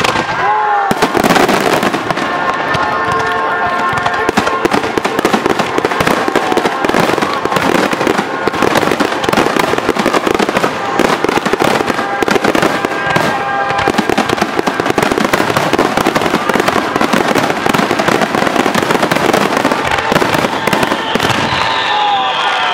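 Fireworks barrage: many aerial shells bursting in rapid, continuous succession, a dense rattle of bangs and crackle. A high whistle falls in pitch near the end.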